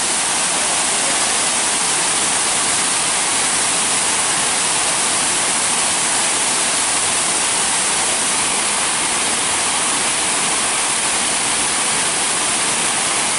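Water rushing and splashing steadily in the upside-down ('backwards') waterfall fountain, an even, unbroken rush of water.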